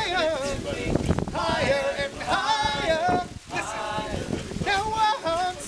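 Male a cappella group singing without instruments: a lead voice holds long, wavering notes in a run of phrases with short breaks between them.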